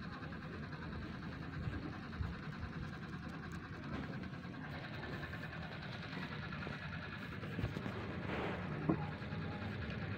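A steady mechanical hum with a fast, faint pulsing running under it, and a few short soft knocks a little over eight seconds in.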